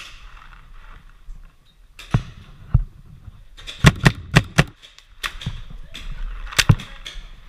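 Paintball markers firing: about ten sharp pops in uneven bursts, starting about two seconds in, some in quick pairs.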